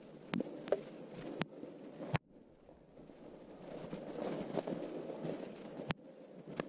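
Footsteps and rustling through forest undergrowth, broken by several sharp clicks and a sudden dropout a couple of seconds in: a faulty camera microphone playing up.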